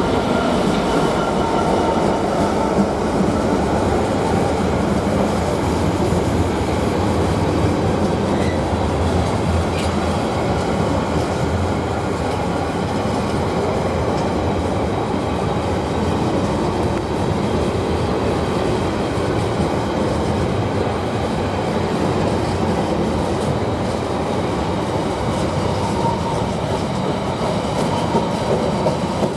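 Freight train of container wagons hauled by a Class 66 diesel rolling past at line speed, its wheels running over the rails in a steady, loud rumble.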